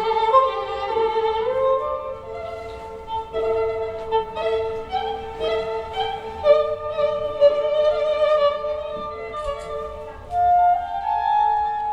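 Instrumental music played back through Børresen Z2 Cryo Edition loudspeakers: a sustained drone note under a slow melody of long held, gliding notes in a string-like voice.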